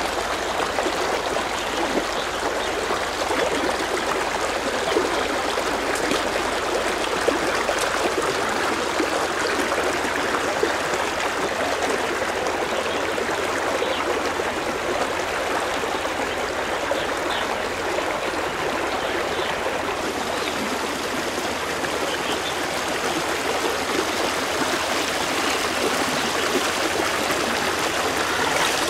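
Shallow river water flowing steadily, a constant rushing trickle.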